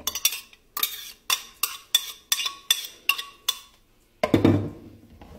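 A metal spoon tapping against the inside of a glass blender jar about ten times, roughly three taps a second, each with a brief glassy ring, knocking out the last of the blended green corn. A little after four seconds comes a heavier, deeper thump as the jar is set down.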